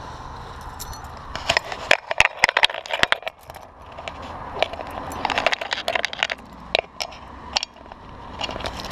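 Camera handling noise: fingers and fabric rubbing, scratching and knocking against the camera, heard as irregular clicks and crackles. The clicks begin about a second and a half in, thin out after about seven seconds and pick up again near the end.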